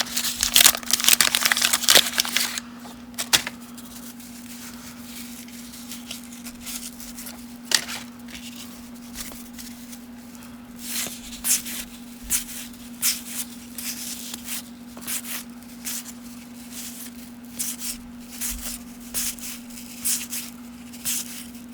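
A 1990 Topps wax pack wrapper torn open and crinkled for the first couple of seconds, then soft flicks and rustles of the cardboard baseball cards being handled one by one. A steady low hum runs underneath.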